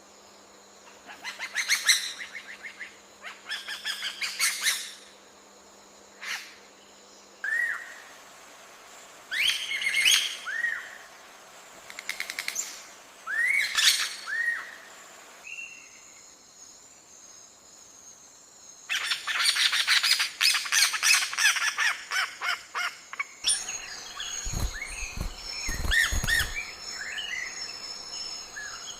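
Birds calling in several separate passages: fast trilled phrases, short arching whistled notes, and a dense stretch of rapid chattering calls, with a few low thumps near the end.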